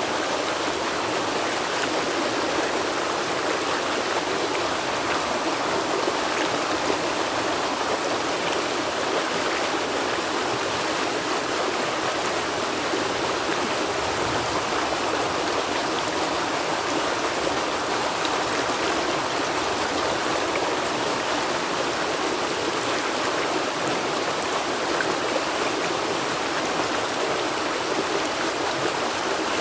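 River water flowing over rocks: a steady rushing and babbling that never lets up.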